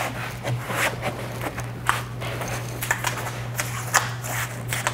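Hands rubbing and pressing a diamond-pattern foam traction mat down onto a jet ski's glued tray: scattered short scuffs and rustles over a steady low hum.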